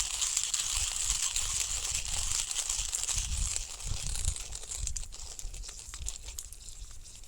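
Cooking over a wood campfire: a steady sizzling hiss with scattered crackles, the hiss dying down about four seconds in while the crackles carry on.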